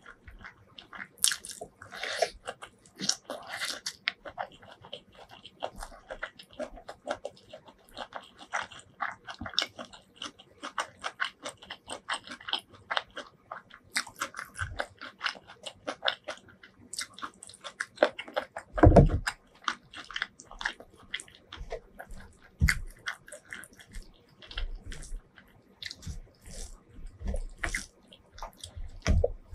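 Close-miked eating sounds: wet chewing and mouth clicks from mouthfuls of curry and rice eaten by hand, with fingers squishing the rice into the curry. One heavier low thump comes about nineteen seconds in.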